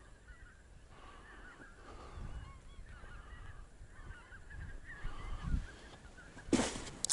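A flock of wild geese calling in flight, many faint overlapping honks going on steadily as the flock passes high up. A loud sudden rustle near the end.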